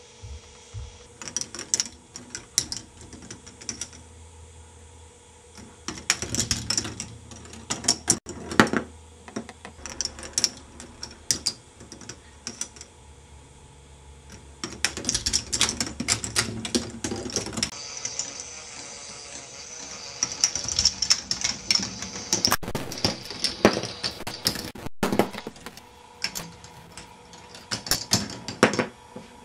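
K'nex ball machine running: plastic balls clatter and tick irregularly along the plastic tracks and through the lifts and gears, in busy flurries of clicks. Under the clicks is a faint steady hum from the motorised lifts.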